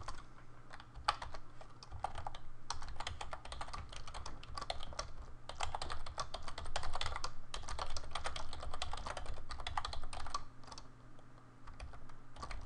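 Fast typing on a computer keyboard: a dense run of key clicks, with a brief pause near the end.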